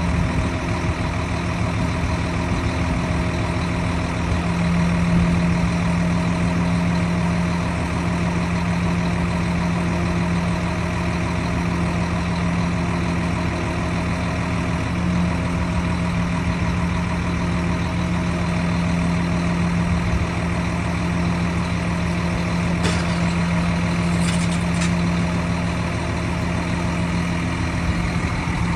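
Volvo FMX concrete mixer truck's diesel engine running steadily with the mixer drum turning, a constant low hum that does not change in speed. A few faint clicks come about three-quarters of the way through.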